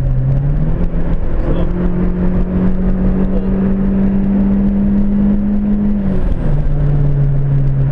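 Ford Fiesta XR2i's turbocharged 1.8 Zetec four-cylinder engine heard from inside the cabin, under a steady haze of road and wind noise. Its note climbs in two steps in the first second and a half, holds high and steady, then falls back about six seconds in.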